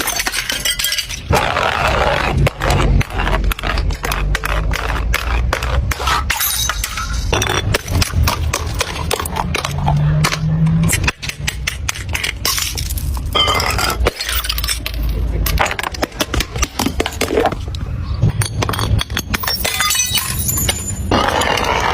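Glass bottles being crushed: a continuous run of crunching and crackling breaking glass with small clinks of shards.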